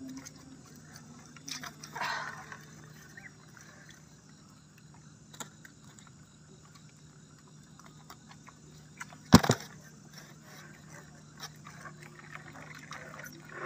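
Wet nylon gill net being handled in a small boat as fish are worked free: water splashing and dripping off the net, with small clicks and a sharp knock about nine seconds in. A low steady hum runs underneath.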